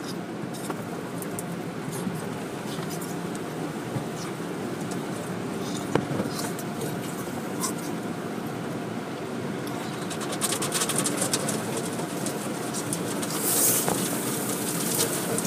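Automatic car wash heard from inside the car: a steady wash of water spray and brushes over the windshield with a low machinery hum. From about ten seconds in, a dense crackle of spray hitting the glass.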